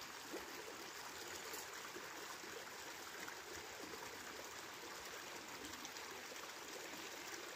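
Steady rushing of flowing water, like a mountain stream.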